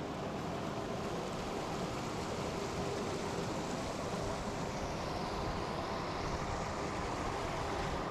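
The River Tawe running, a steady rush of water without a break.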